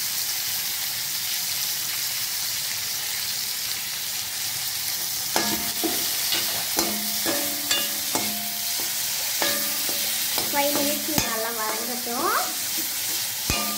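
Shallots, tomatoes and dried red chillies sizzling in hot oil in an iron kadai. From about five seconds in, a steel slotted spatula stirs them, scraping and knocking against the pan, each knock ringing briefly.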